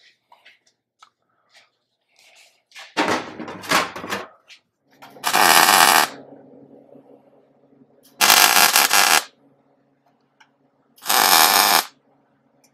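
MIG welder laying three tack welds on a VW Beetle's steel floor pan, each a loud crackling burst lasting about a second, a few seconds apart. A few sharp metal knocks come just before the first tack, and a low steady hum carries on between the tacks.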